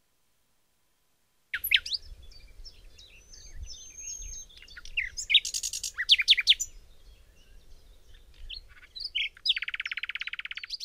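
Songbird chirps, short whistles and quick trills, starting suddenly after a silence and ending in a rapid buzzy trill about a second long.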